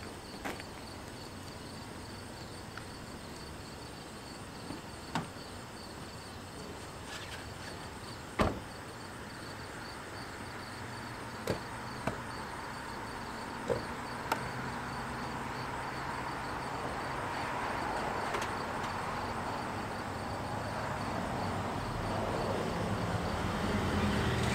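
Car door of an SUV opened and shut with a few clicks and knocks, the loudest about eight seconds in, then a steady background noise that slowly grows louder.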